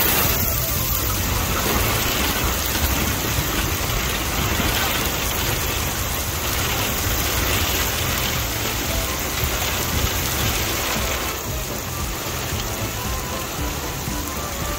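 Heavy rain falling steadily on water, docks and pavement.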